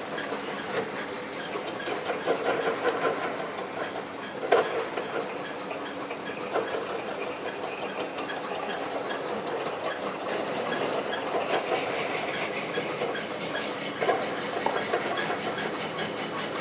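Mortar jointing machine running with a steady clattering rattle, with a couple of sharper knocks about four and a half seconds in and near the end.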